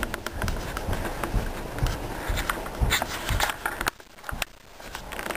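Footsteps on wooden decking, a steady walking pace of about two steps a second, which stop about four seconds in.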